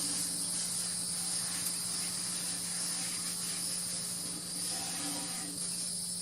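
Steady high-pitched chorus of insects trilling without pause, with a low steady hum underneath.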